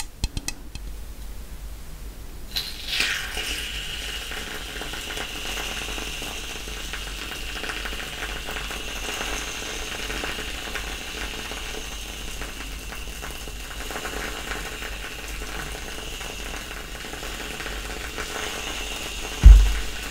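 Aerosol can of whipped dairy cream spraying onto a mug of hot chocolate: a steady hissing, crackling sputter that starts about three seconds in, after a few light clicks. A single loud low thump comes just before the end.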